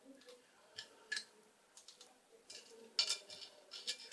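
Scattered light clicks and taps of chocolate flips and fingertips against china plates as the flips are picked off a saucer and set onto a dessert, about six of them, the loudest about three seconds in.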